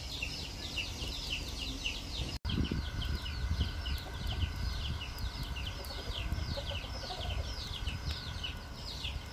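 Birds chirping steadily: a chorus of quick, falling high chirps, several a second, over a low rumble. The sound drops out for an instant about two and a half seconds in.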